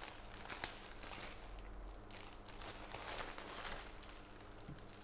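Faint crinkling and rustling as a wrist rest and its packaging are handled, with a light click about half a second in.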